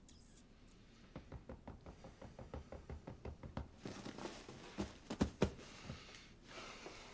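Fingers drumming quickly on an upholstered couch armrest, about six light taps a second, followed by three louder thumps a little past the middle.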